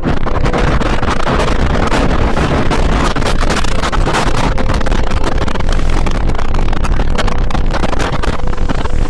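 Tornado-strength wind rushing and buffeting the microphone without a break, with many sharp crackles through it.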